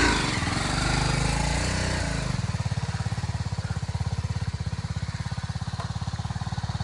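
Motorcycle engine running just after a cold start: its revs rise and fall for about two seconds, then settle into a steady, evenly pulsing idle.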